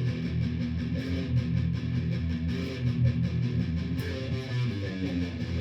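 Electric guitar played through an amplifier, a busy run of pentatonic noodling with many quick notes, heard through a phone's microphone.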